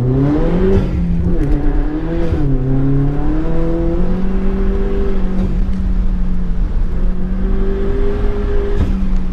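2012 Chevy Cruze engine under hard acceleration from the start of an autocross run. The revs climb, drop sharply at an upshift about a second in, climb again and dip once more, then hold fairly steady with small rises and falls.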